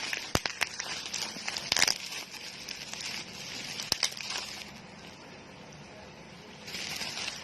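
Bubble wrap and plastic packaging being handled and crinkled, with a few sharp clicks in the first half and another burst of crinkling near the end.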